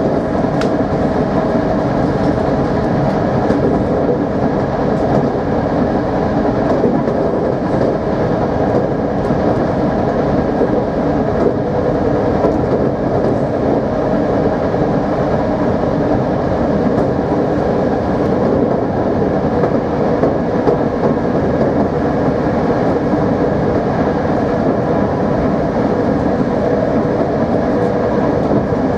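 Dutch Plan V (Mat'64) electric multiple unit running at a steady speed: the even drone of its electric traction motors, with a few steady tones, over wheel and rail noise and occasional faint clicks from the track.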